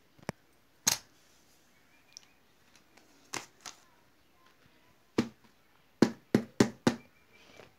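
Scattered sharp taps and knocks of objects being handled on a carpeted floor, ending with four quick knocks about six seconds in as a hand takes hold of a blue ball-shaped money box.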